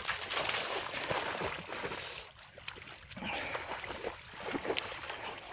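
A dog wading through shallow water in a reed-lined ditch: splashing and sloshing mixed with the rustle of reeds and grass, with a brief lull about two and a half seconds in.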